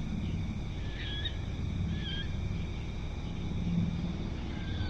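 An unidentified bird calling in the night paddy fields: three short high calls, about a second in, at two seconds and near the end, over a steady low background noise.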